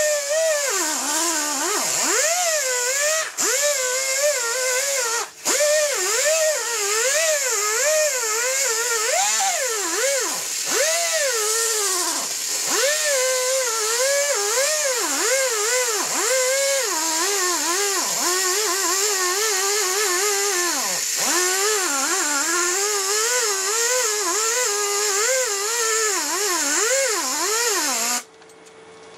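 Pneumatic right-angle sander with a sanding disc grinding rust and crusted dust off a lathe bed. Its whine wavers up and down as it is pressed and eased, over a steady hiss of exhaust air. It cuts out briefly twice, about three and five seconds in, and stops near the end.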